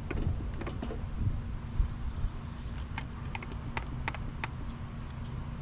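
Metal clicks and clinks of 727 automatic transmission parts being handled as a clutch drum is lifted out of the case, with a dull thump about two seconds in; a cluster of sharp clinks follows a little past halfway.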